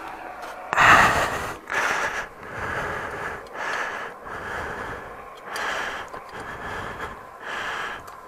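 A person breathing close to the microphone, one audible breath about every second.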